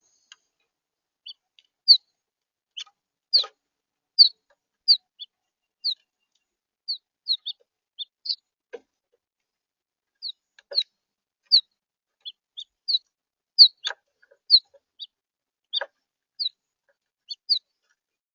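House finches calling: short, sharp chirps repeated irregularly, about one or two a second, with a brief pause midway.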